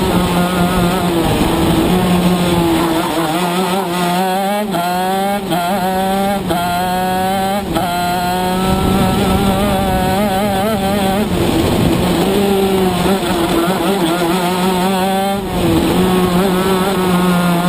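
Shifter kart's two-stroke engine at speed. Its pitch climbs and breaks off in several quick upshifts about four to eight seconds in, then holds high. It cuts back sharply near the end as the kart slows for a corner, then picks up again.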